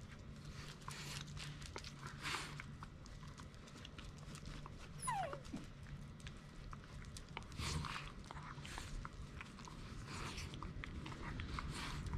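Shiba Inu giving one short falling whine about five seconds in, among faint rustling sounds.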